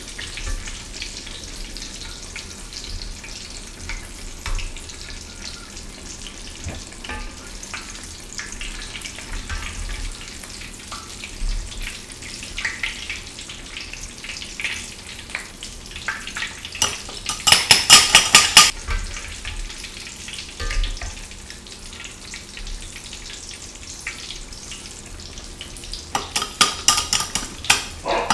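Potato and ground beef croquettes deep-frying in hot oil, a steady sizzling crackle, while a mesh skimmer is drawn through the oil. Two bursts of loud, rapid clicking stand out, one about two-thirds of the way in and one near the end.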